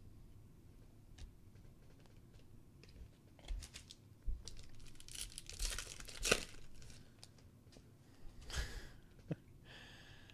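Foil trading-card pack wrapper being torn open and crinkled. The crinkling comes in bursts, mostly in the middle and loudest around the tear, with another short crinkle near the end. A few light clicks from cards being handled come before it.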